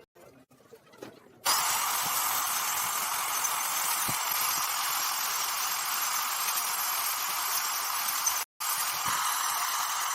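A steady, loud hiss starts about a second and a half in and runs on evenly. It drops out abruptly for an instant near the end and then comes back.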